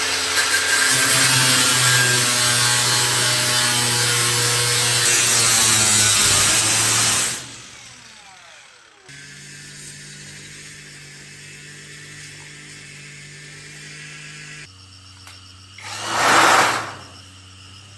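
A power tool running under load for about seven seconds, then winding down with a falling pitch. A steady low hum follows, with a short swelling whoosh near the end.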